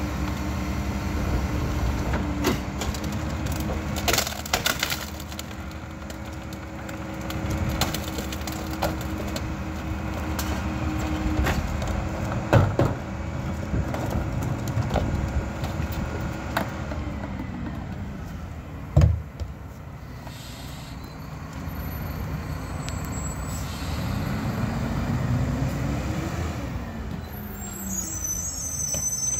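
Mack GU garbage truck's diesel engine running under the load of its Leach 2R-III rear-loader packer, with loud bangs and cracking as a mattress and trash are crushed in the hopper and a cart is knocked against it; the sharpest bangs come a third and two thirds of the way through. Near the end the engine revs up as the truck pulls ahead.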